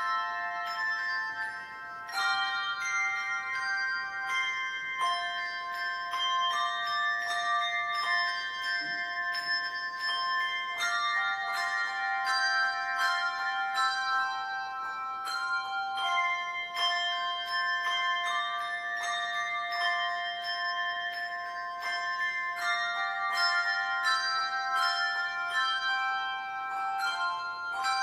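Handbell choir playing a piece: hand-held bells struck in melody and chords, each note ringing on and overlapping the next.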